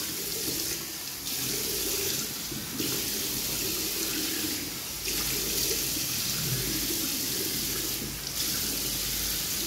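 Tap water running steadily into a bathroom sink while cupped hands scoop it and splash it onto the face to rinse off face wash. The rush of the water dips briefly a few times as the hands move through the stream.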